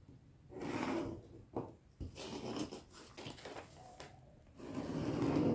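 Brown pattern paper rustling and a metal ruler scraping across the paper and table as they are handled, with pen strokes along the ruler. The sound comes in several short stretches of a second or less, with quieter gaps between them.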